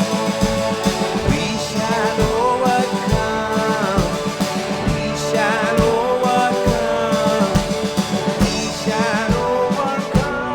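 Live band playing a slow song, with a drum kit keeping a steady beat under held chords and a lead melody that bends and wavers in pitch.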